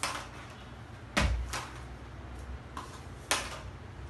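A child jumping repeatedly in a hula hoop on a tiled floor: her feet land with a thud, several times about a second apart, the loudest a little after a second in.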